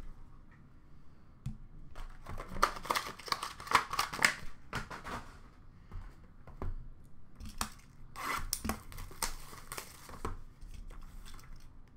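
Cardboard and plastic packaging being handled and torn open by hand: a small box of 2020-21 Upper Deck Clear Cut hockey cards picked up and opened, with crinkling, tearing and clicking in two spells.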